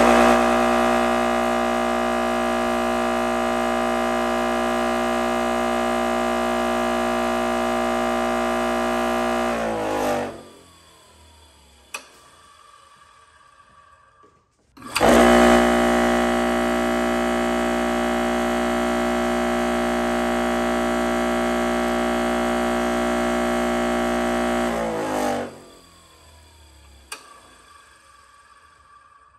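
Electric bench grinder motor with a CD on its spindle, running with a steady many-toned hum, then winding down with falling pitch about ten seconds in. It starts up again about fifteen seconds in, runs just as steadily and winds down once more near the end. A single sharp click follows a couple of seconds after each run-down.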